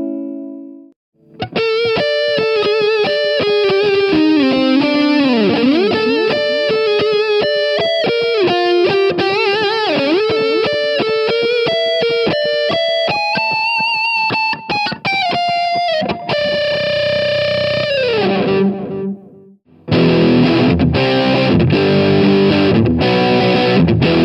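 Fender New Standard Stratocaster electric guitar with three ceramic single-coil pickups, played through distortion. A chord rings out and stops about a second in. Then comes a lead line with string bends and vibrato, then a held note that slides down in pitch. After a short break, distorted rhythmic chords start.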